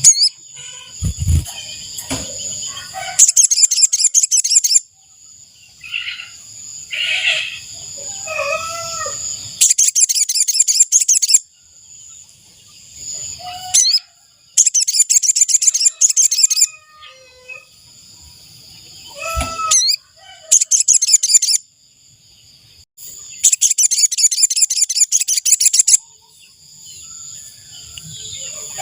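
Sogon bird calling: a rapid, high, buzzy trill of about one and a half to two seconds, repeated five times, the kind of call played to lure the bird. Steady high insect drones run underneath, and other lower bird calls come between the trills.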